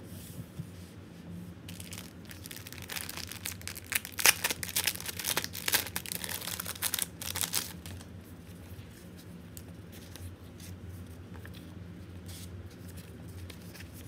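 Crinkling and tearing of a clear plastic sticker-pack sleeve as it is opened and the sheets are pulled out, loudest from about two to eight seconds in. After that come softer rustles and light taps of paper stickers being handled.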